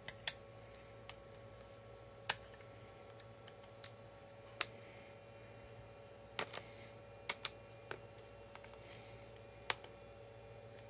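About ten sharp, irregular clicks and taps of small tools, screws and plastic laptop parts being handled during disassembly, over a faint steady hum.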